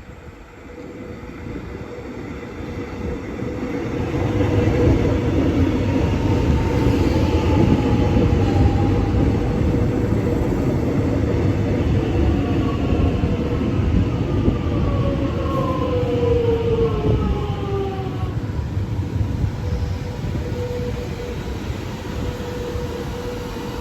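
An X'Trapolis electric suburban train running through the station. Its rumble builds over the first few seconds, stays loud for more than ten seconds, then eases off. Whining tones slide downward in pitch through the middle of the passage.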